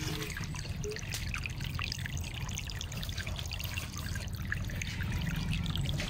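Shallow water running and trickling along a narrow ditch, a steady splashy wash over a low steady hum.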